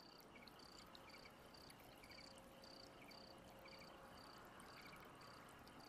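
Near silence with faint, even insect chirping, about two short high chirps a second.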